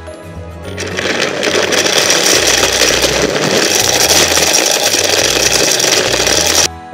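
Hamilton Beach Professional juicer mixer grinder running, grinding whole dried turmeric in its jar: the motor noise builds over about the first second, runs steadily, and stops suddenly near the end.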